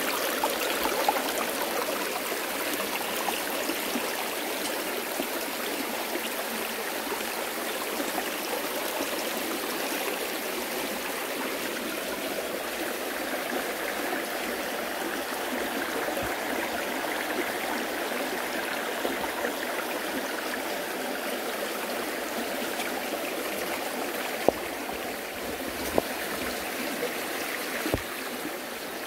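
Steady rush of flowing water, with a few short sharp knocks near the end.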